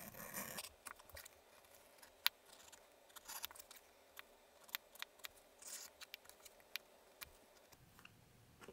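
Edge beveler shaving the edge of a leather holster panel: faint, scattered scraping strokes and light clicks as the tool cuts curls off the edge.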